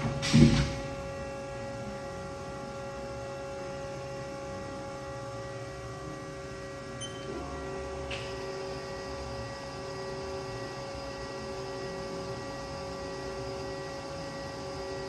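Haas SL-20 CNC lathe running: a steady machine hum made of several fixed tones, with a loud thump just after the start.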